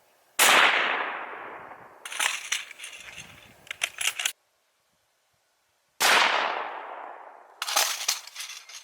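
Two .223 rifle shots about five and a half seconds apart, each with a long fading echo and followed by a run of light metallic clicks and rattles. The sound cuts out completely for a couple of seconds between them.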